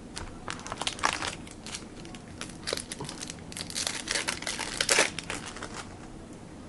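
Crinkling and tearing of a trading-card pack's plastic wrapper as it is opened, a run of sharp crackles that is densest about a second in and again from about three and a half to five seconds in.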